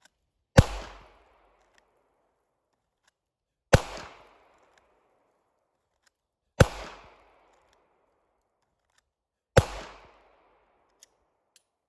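Four single shots from a Glock 48 9mm pistol, about three seconds apart, each with a short echo fading after it; each is the first shot fired on a fast draw from an appendix holster.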